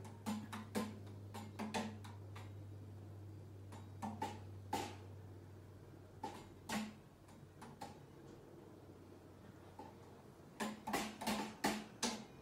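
Umbrella cockatoo clacking against its metal cage bars: sharp knocks in irregular clusters, with a fast run of knocks near the end.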